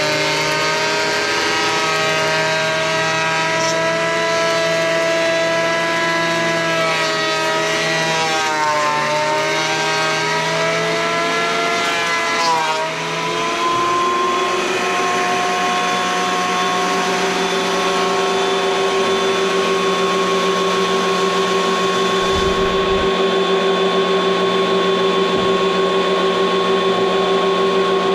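Craftsman benchtop thickness planer running, its motor whine sagging in pitch several times as chainsaw-milled planks feed through the cutterhead under load, then holding steady through the second half.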